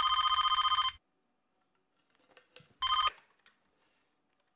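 Red corded landline telephone ringing with a fast electronic trill: one ring of about a second, then a second ring about three seconds in, cut short as the handset is lifted, with light clicks of the handset being handled.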